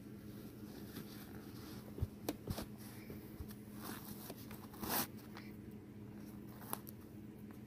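Laces being pulled through the metal eyelets and hooks of a suede combat boot: faint rustling and scraping, with a few light clicks a couple of seconds in and a short swish about five seconds in. A steady low hum runs underneath.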